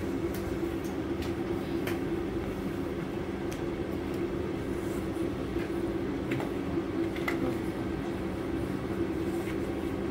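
BMW M42 four-cylinder petrol engine idling with a steady, even hum, with a few faint clicks over it.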